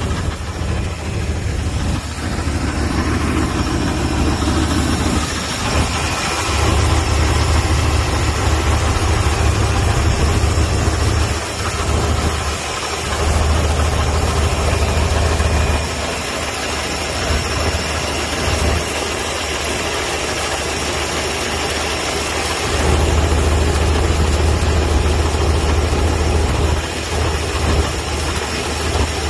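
Chevrolet 305 small-block V8 idling with a rattle, which the owner traces to the TH350C transmission's torque converter rather than an engine tick. The low hum swells and fades several times.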